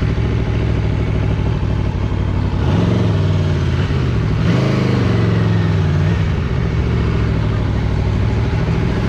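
Motorcycle engine running at low speed as the bike rolls along slowly. The revs rise briefly about three seconds in, and again around four and a half seconds, then fall away.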